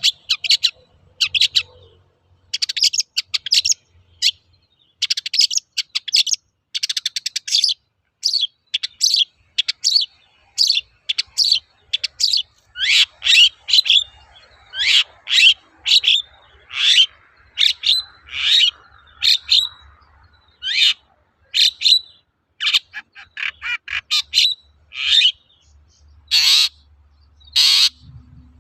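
Long-tailed shrike singing hard: a steady stream of short, sharp, high chattering notes and quick trills in phrases about a second apart, with two longer, louder harsh calls near the end.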